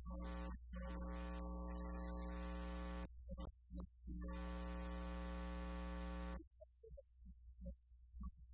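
Steady electrical buzz, a mains hum with many evenly spaced overtones and hiss over it. It cuts out abruptly about three seconds in, comes back a second later, and stops for good two seconds before the end.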